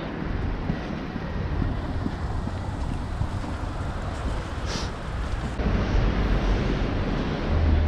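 Wind rumble and road noise from riding a bicycle, picked up by a helmet-mounted action camera's microphone, with a brief hiss about five seconds in; the rumble grows louder in the second half.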